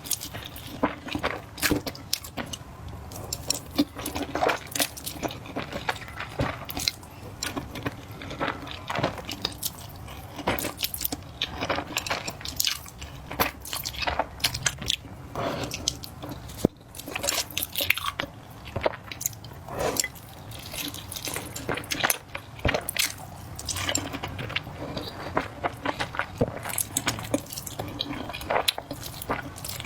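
Close-miked eating of spicy flat noodles: wet chewing and mouth sounds, an irregular run of short smacks and clicks.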